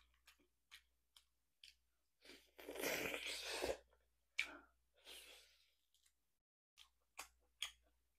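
Close-miked eating of braised beef ribs: scattered wet mouth clicks and chewing as the meat is bitten off the bone, with a louder noisy stretch of about a second and a half near the middle.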